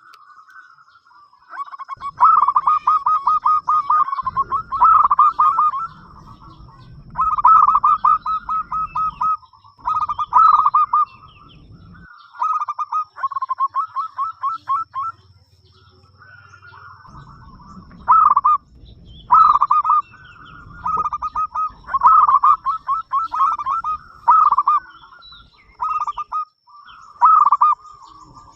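Zebra dove (perkutut) calling in repeated bouts of fast, rolling pulsed coos, each bout one to three seconds long with short pauses between.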